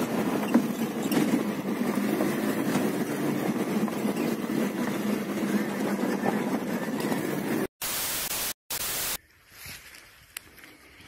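Car driving along a dirt road, heard from inside the cabin: steady engine and tyre noise. About three-quarters of the way through it cuts off into two short bursts of loud hiss.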